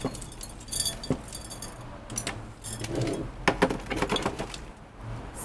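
Pots and planters being handled and set down on a plastic potting tray, giving a string of irregular clinks and light knocks, some with a short high ring.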